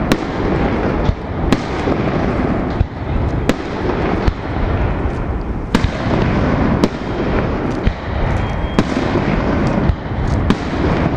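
Aerial fireworks shells bursting overhead: sharp bangs about once a second over a dense, continuous rumble of the display.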